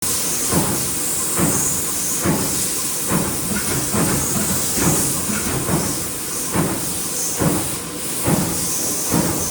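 Stamping press running a progressive die that makes silver riveted contacts from two fed strips, with an even stroke slightly faster than once a second over a steady hiss.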